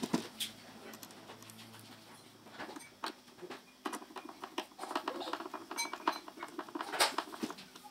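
Hand screwdriver turning a small screw into a watch winder's panel: faint metal scraping and ticking from the blade in the screw head, with a few sharper clicks.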